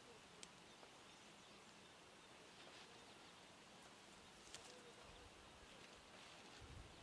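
Near silence: faint outdoor ambience with a few soft clicks. A low rumble comes in about five seconds in and grows near the end.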